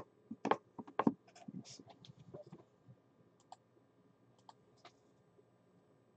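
A foil trading-card pack being torn open and handled: a quick run of crinkles and sharp clicks over the first three seconds, then a few scattered clicks.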